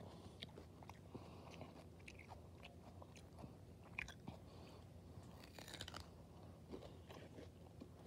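Faint, close-up ASMR sounds: scattered small clicks and crackles, with a sharper click about four seconds in and a short burst of crackling near six seconds, over a steady low hum.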